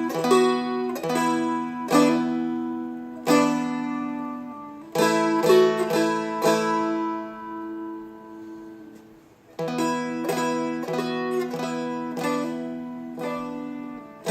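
A Seagull Merlin, a dulcimer-style fretted instrument, picked through a line of the song's melody and chords over open drone strings. The notes are struck about once or twice a second. A chord rings out and fades seven to nine seconds in, then the picking starts again.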